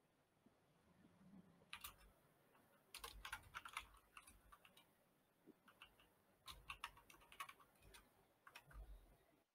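Faint typing on a computer keyboard, picked up by an open voice-chat microphone: quick keystrokes in four short bursts, with pauses between them.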